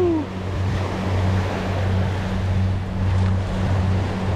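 Small waves breaking and washing up onto a sandy beach, with wind on the microphone and a steady low hum underneath.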